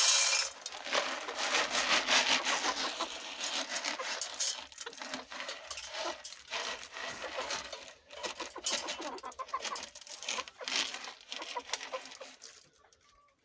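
Chickens clucking and calling in a busy, irregular chatter that fades away near the end.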